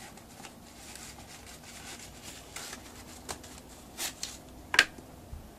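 Paper shoe stuffing rustling and crinkling as it is pulled out of a sneaker, in several short crackles, the loudest near the end.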